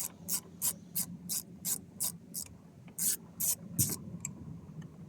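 Hand ratchet with a Phillips bit clicking as it backs out a trim screw, about three clicks a second, with a short pause before the last few and stopping about four seconds in.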